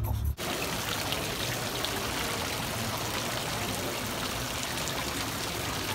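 Water splashing and trickling steadily from a tiered fountain into its basin, cutting in abruptly about a third of a second in.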